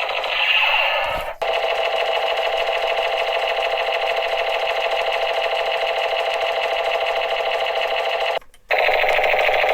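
Battery-powered toy machine gun firing continuously, a rapid rattling buzz. It stops briefly about a second in and again near the end, then starts again.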